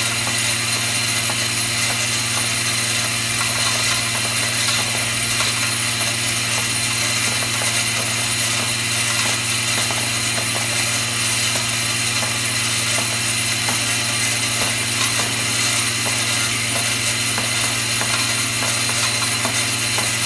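Vibratory bowl feeder running: a steady low hum from its drive under a continuous rattle and clatter of small metal rings jostling around the bowl's spiral track and along the outlet rail.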